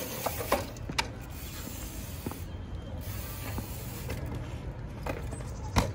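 Street trials bike hopping and balancing on a concrete ledge: scattered knocks and clicks of tyres and bike on concrete, then a sharper, louder knock near the end as the bike lands the drop.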